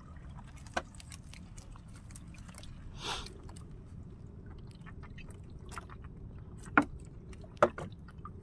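Gill net being hauled in over the side of an outrigger boat: wet mesh, floats and fish dripping and knocking against the hull, with a short splashing rush about three seconds in and two sharp clicks near the end over a steady low background.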